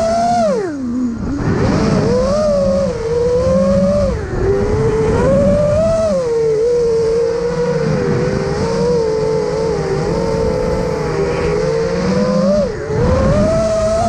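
FPV quadcopter's motors and propellers whining in flight, the pitch rising and falling with throttle and dropping sharply about a second in.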